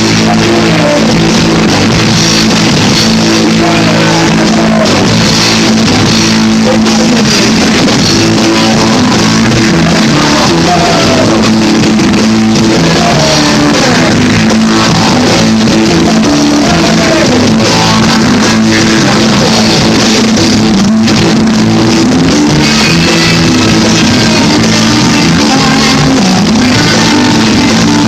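Rock band music: electric guitar over bass and drums, playing steadily and loud.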